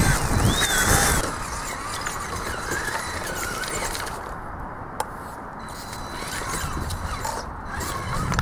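Traxxas Summit RC rock crawler's electric motor and gears whining, the pitch rising and falling with the throttle as it crawls over loose rock. A rush of noise in the first second, and a single sharp click about five seconds in.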